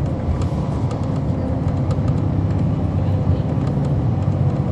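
2011 NABI 40-SFW transit bus running, its Cummins ISL9 diesel engine and ZF Ecolife 6AP-1400B automatic transmission giving a steady low drone with a faint steady whine and a few light clicks.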